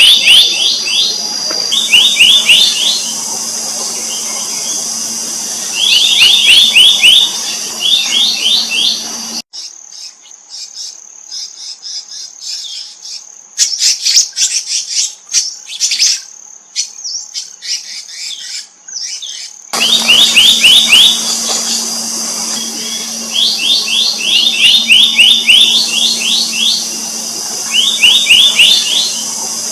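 Black-naped monarch calling: short bursts of quick, rising ringing notes, repeated every few seconds over a steady high drone. For about ten seconds in the middle the drone drops out and higher, scattered chirps take over.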